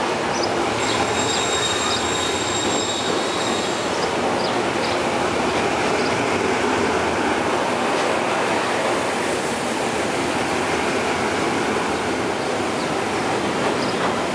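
Hitachi HID diesel-electric locomotive running as it moves slowly along the station track, its engine and wheels making a steady loud rumble. A thin high wheel squeal sounds in the first few seconds.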